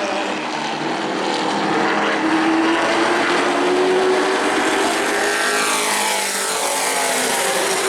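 A pack of Pro Truck stock-car-style race trucks running their engines at racing speed around an oval, several engine notes overlapping. One note falls in pitch about six seconds in as a truck goes by.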